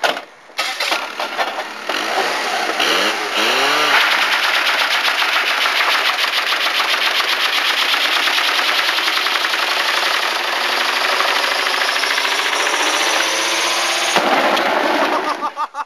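Old Mitsubishi Lancer's engine revved up in a few rising blips, then held at high revs for about ten seconds with a driven wheel spinning on the spot in a smoky burnout, a fast pulsing running through the din. It drops away suddenly near the end.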